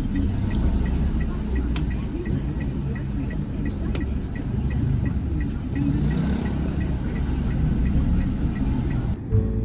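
Low, steady rumble of a car on the move, with a light regular ticking about three times a second; it cuts off near the end.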